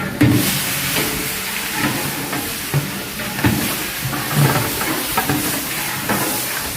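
A large batch of mutton frying in a big biryani pot: a steady sizzle, with irregular scraping and knocking as it is stirred.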